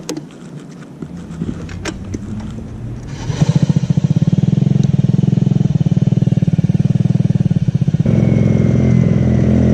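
Motorcycle engine starting up about three seconds in, after a few clicks, and running with a fast, steady pulse; its sound steps up and changes near the end.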